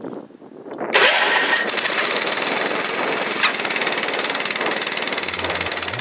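Troy-Bilt rear-tine tiller's 8 hp Kohler single-cylinder engine starting: it catches suddenly about a second in, then runs steadily and loudly.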